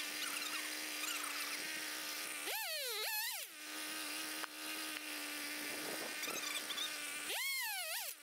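Chainsaw engine idling steadily, revved up and let back down twice, about two and a half seconds in and again near the end.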